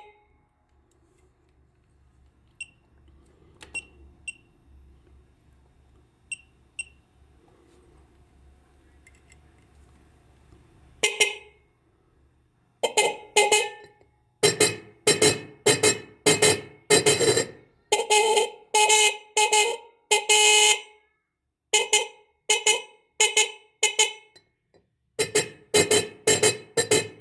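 Car horn sounding in short honks after a quiet stretch with a few faint clicks: one honk about eleven seconds in, then a rapid string of honks, about two a second, some held a little longer, to the end.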